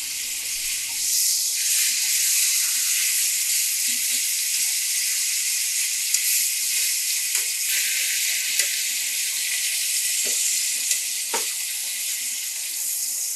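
Chuck steak searing in butter in a carbon steel pan: a steady, high sizzle, with a few faint clicks as metal tongs move the meat in the pan.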